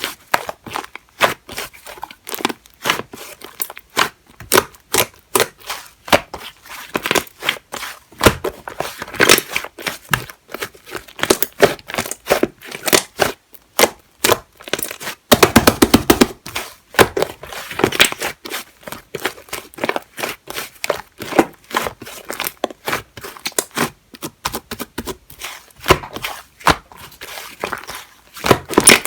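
Soft, fluffy clay slime being squished and stretched by hand, making a continuous run of sticky pops and crackles, with a dense cluster of pops about halfway through.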